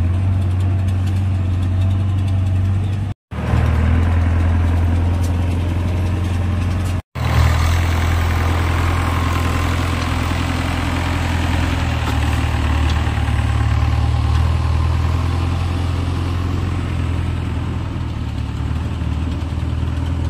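JCB 3DX backhoe loader's diesel engine running steadily as the machine drives and raises its loader bucket. The sound cuts out briefly twice, about three and seven seconds in.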